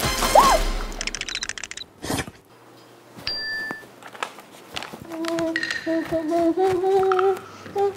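Edited comedy sound effects: a quick run of clicks, a whoosh about two seconds in and a short ding, then a wavering hummed-sounding tune for the last few seconds.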